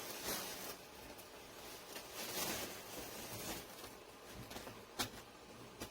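Faint rustling and handling noises of a new suitcase and its packaging being handled, with a single sharp click about five seconds in.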